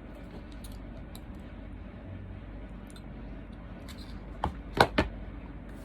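Quiet eating and handling noises: faint scattered clicks over a steady hiss, then three sharp knocks in quick succession near the end.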